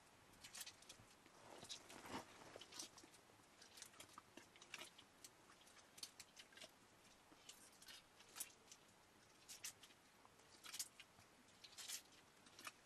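Faint, irregular crackling and clicking of hands working a soft lump of food over a metal pot.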